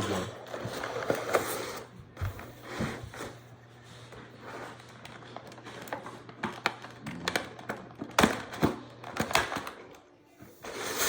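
Plastic action-figure packaging being worked and cut open by hand: scattered clicks, taps and crinkles, with a steady low hum underneath for most of it.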